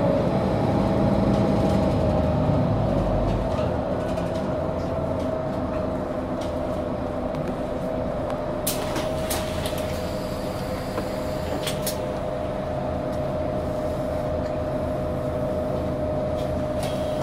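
A 2008 Mercedes-Benz O530G Citaro articulated bus under way, heard from inside the passenger cabin: a steady engine and drivetrain hum with a constant whine. The low engine note drops about three and a half seconds in, and a few clicks and rattles come through later.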